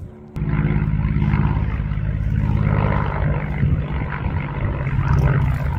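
An engine running steadily with a low, even hum. It cuts in suddenly about a third of a second in.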